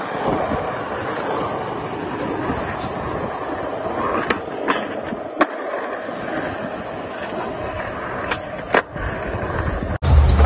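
Skateboard wheels rolling steadily on asphalt, broken by sharp clacks of the board popping and landing flat-ground tricks: a few between about four and a half and five and a half seconds in, and two more near nine seconds. Music with a heavy bass comes in just before the end.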